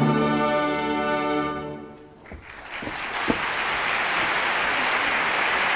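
An opera orchestra holds the final chord of an aria, which dies away about two seconds in. A few scattered claps follow, and the audience breaks into steady applause.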